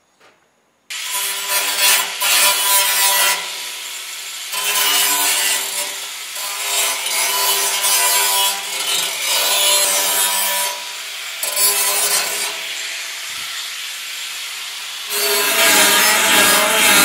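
Electric angle grinder grinding the cut steel edges of a steel drum smooth. It starts abruptly about a second in, and its steady whine swells and eases several times as the disc bites into the metal and comes off it.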